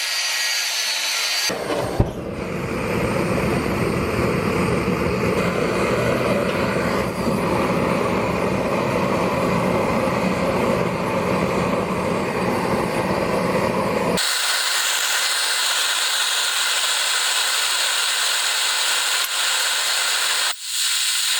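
Steady metalworking machine and power-tool noise in three cut-together stretches: a fuller, lower noise from about 1.5 s in, then a hissier, higher noise from about 14 s in. A single sharp knock comes about 2 s in.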